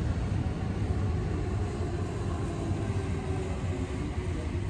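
E233-8000 series electric train pulling away down the line, its low rumble slowly fading as it recedes.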